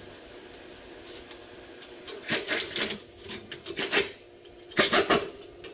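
Rough scraping strokes on the bare front wheel hub of a lifted Lincoln Town Car, in three short bouts of several strokes each, starting about two seconds in.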